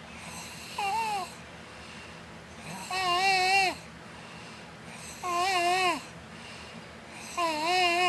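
A sleeping young girl snoring in high-pitched, wavering squeals: one short squeal, then three longer ones about two seconds apart, each on a breath.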